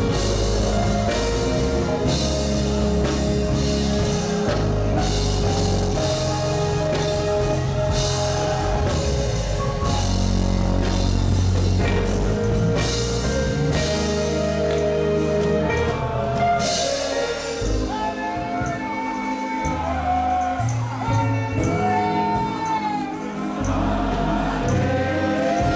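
Live gospel band music with a drum kit and bass, and a voice singing over it in the second half.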